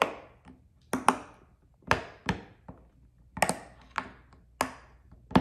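Silicone pop-it fidget toy shaped like a peacock, its bubbles pressed through by fingertips: about ten sharp pops at irregular spacing, some in quick pairs.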